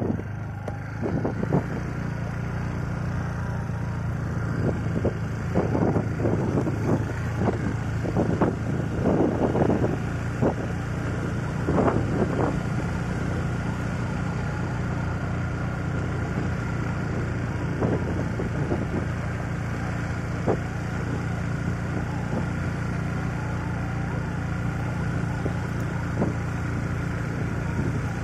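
A vehicle engine runs steadily as heard on board while driving, with some wind noise. Scattered short clatters and knocks come mostly in the first twelve seconds or so.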